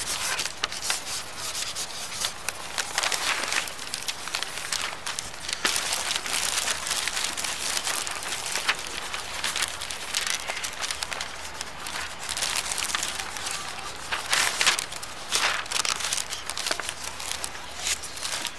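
A drawing tool scratching and rubbing across paper in irregular strokes of varying length, a few of them louder and longer.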